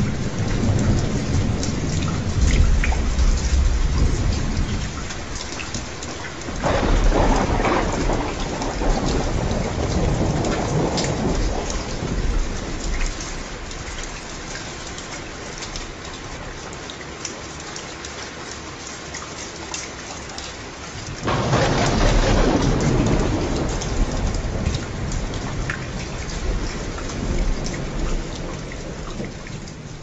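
Steady rain with thunder rolling through it: a low rumble at the start, a new roll about seven seconds in and another about twenty-one seconds in, each swelling suddenly and dying away over several seconds.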